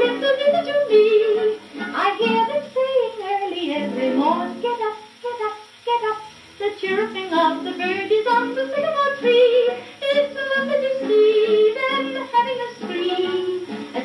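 HMV Model 163 acoustic cabinet gramophone playing a 78 rpm record: a woman's wavering sung melody over instrumental accompaniment, with a thin sound lacking deep bass and top end.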